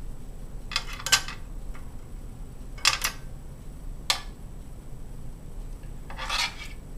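Metal tongs clicking and clanking against a stainless steel pan while turning a hot dog in sauce: a few sharp clicks over the first four seconds, then a brief scraping sound about six seconds in.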